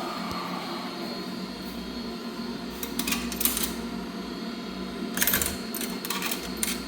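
Steady machine hum in a laundry room, with short bursts of metallic clicking and rattling about three seconds in and again about five seconds in.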